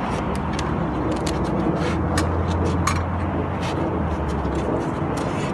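Steady low rumble with scattered light clicks and knocks as the insulated lid and brood box of a wooden beehive are lifted off.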